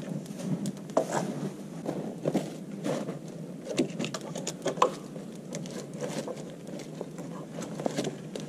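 Boots crunching through snow, then wooden poles being shifted and knocked together, with irregular crackling clicks throughout.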